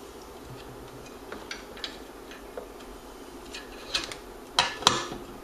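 Scattered light clicks and taps from hands working on a variac's wiring and metal side cover, with two sharper clicks in quick succession near the end.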